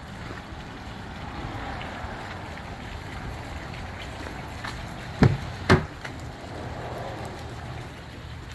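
A pickup truck's door being unlatched and pulled open: two sharp clunks about half a second apart, a little past halfway, over a steady low background rumble.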